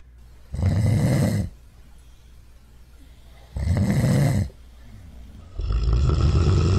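English bulldog snoring loudly while asleep: three long, low snores, about two seconds apart.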